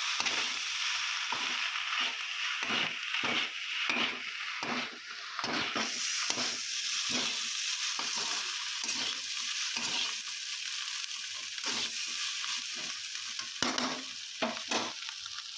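Chopped egg parotta frying in a metal kadai, sizzling steadily, while a perforated metal ladle stirs and scrapes through it in regular strokes about twice a second, with a few sharper knocks near the end.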